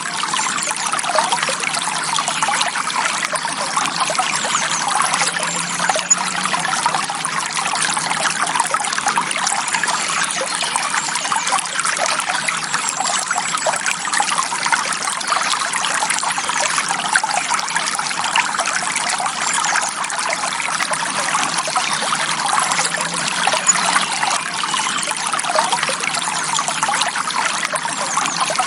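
Shallow forest stream trickling and babbling over stones, a steady burble of small splashes.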